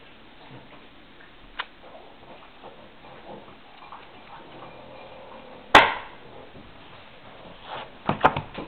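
A paper brochure being handled and closed: one sharp knock about two-thirds of the way through, then a quick run of clicks and paper rustles near the end.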